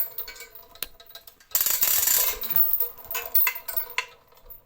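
Hand chain block being hauled: the hand chain rattling and the ratchet pawl clicking, in a dense run of rattling from about a second and a half to three seconds in, with scattered clicks either side. The block is being pulled up under a test load of over a ton.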